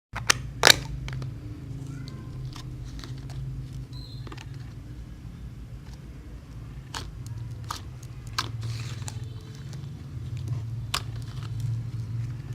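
Slime being handled and laid into a plastic container: scattered small clicks and sticky crackles, the sharpest about half a second in, over a steady low hum.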